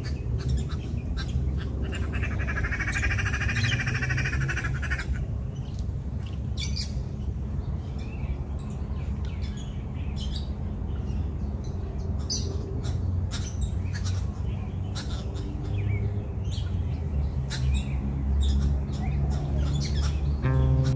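Birds calling, with many short squawks and chirps and one call held for about three seconds near the start, over a steady low rumble.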